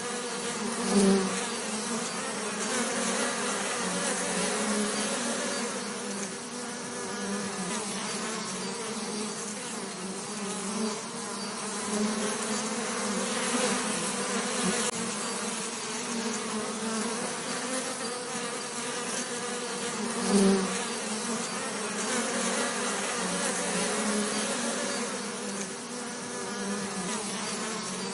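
Bees buzzing continuously, a steady droning hum that swells briefly louder about a second in and again about twenty seconds in.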